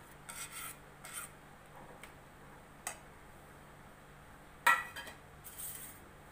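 Steel spatula and mixer jar scraping and clinking against a steel kadhai as thick ground chana dal paste is scraped into it. The scrapes and taps are scattered, with one sharp metal clink about three-quarters of the way through.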